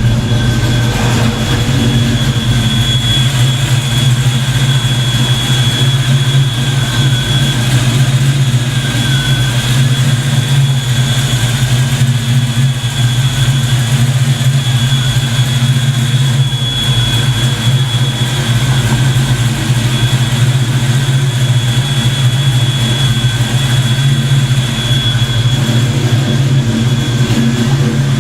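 Fox Body Mustang engine idling steadily with a low, even drone, and a steady high-pitched whine over it.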